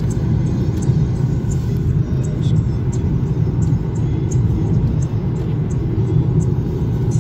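Steady low rumble of road and engine noise from a vehicle travelling at highway speed, with faint high ticks now and then.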